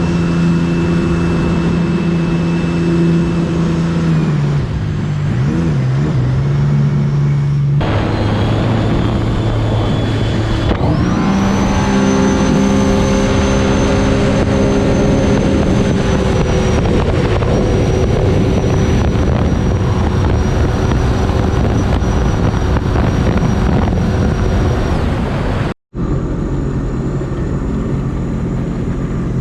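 Sea-Doo RXP 300 jet ski engine running at speed over the water. Its pitch sags a few seconds in, then about eleven seconds in it climbs sharply as the throttle is punched and holds steady at full speed. The sound cuts out abruptly for a moment near the end.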